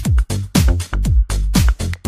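Electronic dance-style background music with a steady kick-drum beat.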